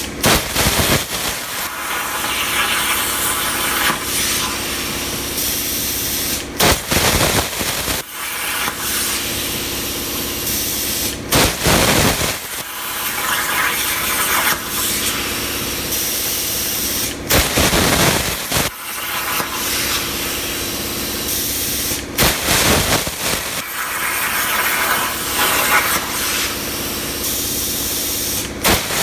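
Razorweld 45 plasma cutter running at about 32 amps on a CNC table, cutting 16-gauge sheet steel: a loud, steady hiss that breaks off briefly several times.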